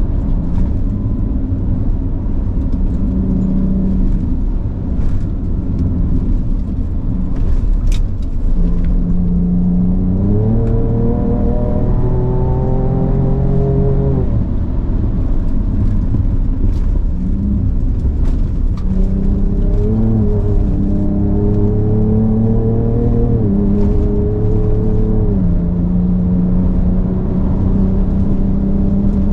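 Ford Ranger Raptor's twin-turbo V6 driven in Baja mode, accelerating in two pulls. The engine note rises in pitch for a few seconds and drops sharply at a gear change about 14 seconds in. After steady running it rises again and drops at another shift near the end.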